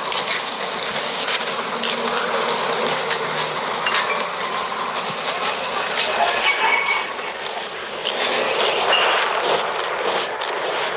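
Steady rushing noise with many small clicks and rubs, from a handheld phone's microphone being jostled as its holder walks.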